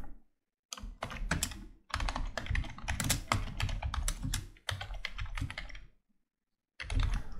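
Typing on a computer keyboard: fast runs of keystroke clicks, with a short pause about a second in and another near the end.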